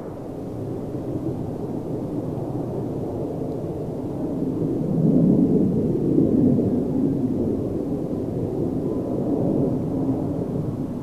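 Jet-engine rumble, swelling about five seconds in as a pair of Mitsubishi F-15J fighter jets come in on approach, with a faint steady hum showing near the end.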